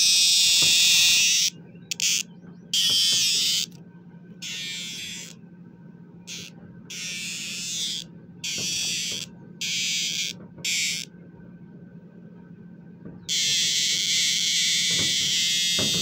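A male superb dog-day cicada buzzing loudly in irregular bursts. A long burst opens, then a string of short ones, a pause of about two seconds, and another long burst near the end.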